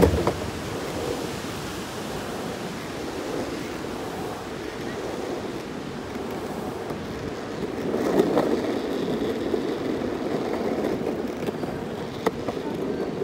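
Longboard wheels rolling over an asphalt path: a steady rough rumble mixed with wind on the microphone. It starts with a knock as the wheels come off a metal bridge deck onto the asphalt, grows louder about eight seconds in, and a single sharp click comes about twelve seconds in.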